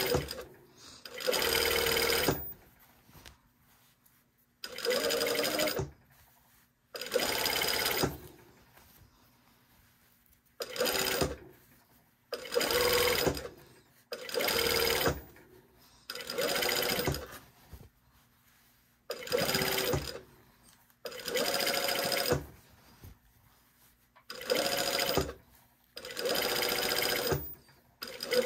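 Sewing machine stitching in short runs of about a second each, stopping and starting around a dozen times, as a neckline facing on knit fabric is understitched.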